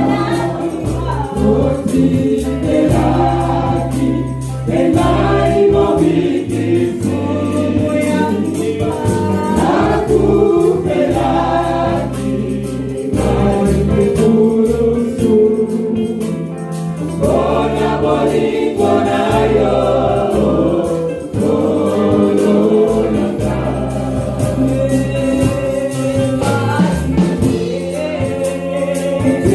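Gospel choir singing in praise and worship with a live band: a steady bass line, with percussion that includes tambourine.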